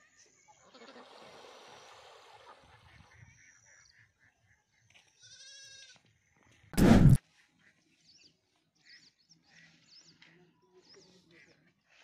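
Goats bleating on a farm: a short wavering bleat a little past five seconds, then one much louder, close bleat about seven seconds in. Faint bird chirps follow near the end.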